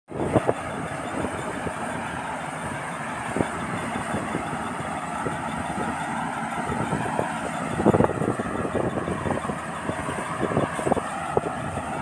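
Rice combine harvester running while it cuts and threshes standing rice: a steady engine and machinery noise with irregular short knocks, the loudest about eight seconds in.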